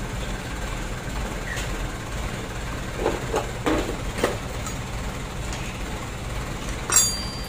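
Metal hand tools clinking and knocking together as they are picked out of a pile on the floor, a few times in the middle and once sharply near the end, over a steady low hum.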